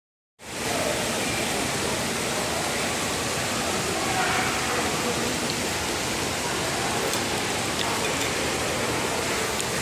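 Steady shopping-mall background noise: a constant wash of hiss with faint, indistinct voices. It starts about half a second in.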